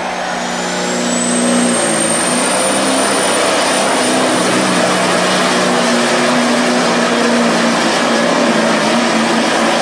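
Pulling tractor's engine running hard at steady, high revs under load, with a thin high whine that rises over the first couple of seconds and then holds.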